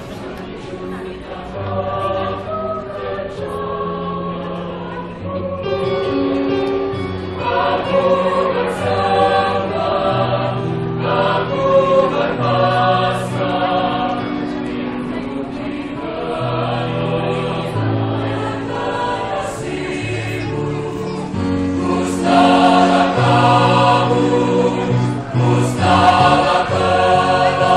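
High-school choir of girls and boys singing in several-part harmony, with long held notes. The singing grows louder toward the end.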